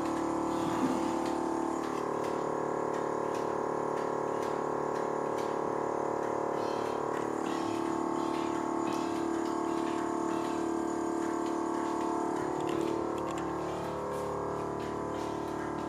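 Electric air-ride suspension compressor running steadily as the front air bags are filled to lift the car. It gets a little quieter about 13 seconds in.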